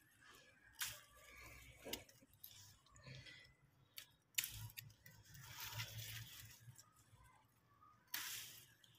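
Scissors snipping through bitter gourd stems: several short, sharp snips, the loudest about four seconds in, between soft rustling of the vine's leaves as it is handled.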